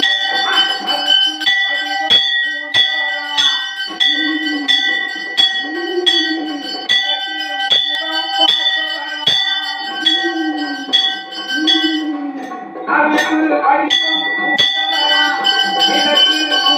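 Temple bell rung in steady strokes, about one and a half a second, with the ringing of each stroke carrying on into the next, as the lamp is waved before the deity in aarti. The strokes break off briefly near the end, then resume.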